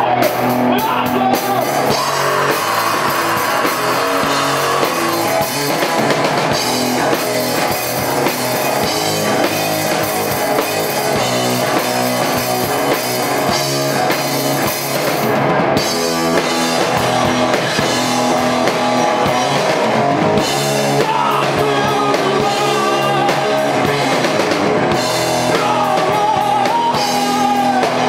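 Rock band playing live: drum kit and electric guitar, with a singer's voice coming in and out over them.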